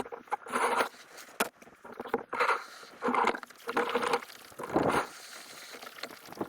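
Kayak moving along a shallow creek, with rhythmic water swishes about one every three-quarters of a second and a sharp click about a second and a half in.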